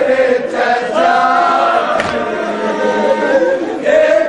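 Men chanting a nauha, a Shia lament, together in a melodic unison line, with a sharp slap of hands on chests (matam) about every one and a half seconds.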